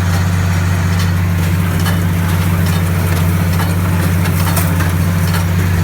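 Tractor engine running steadily with a constant low drone, with a few faint clicks over it.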